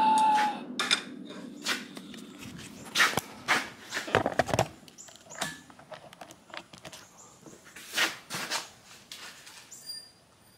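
Scattered light knocks and clicks of handling in a workshop, a few sharper ones about three, four and a half, and eight seconds in.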